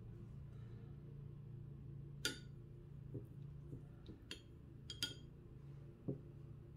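Light clinks of a watercolour brush knocking against the palette's mixing wells as paint is picked up, about five over a few seconds, over a faint steady low hum.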